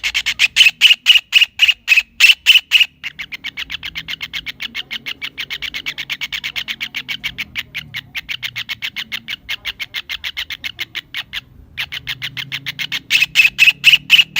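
Kingfisher calling in a long, rapid series of short, sharp notes, about five a second and loud at first, then quieter and quicker. After a brief pause near the end, the loud notes start again.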